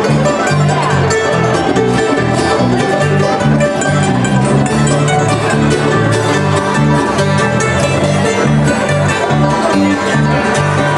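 Bluegrass music with banjo and guitar over a steady bass line.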